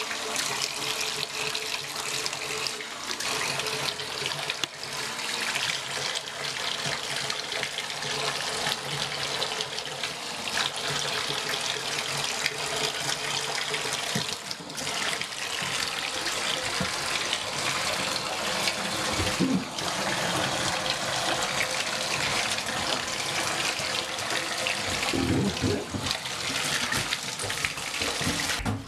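Bathtub tap running, a steady stream of water splashing into the tub and over the kitten being rinsed under it.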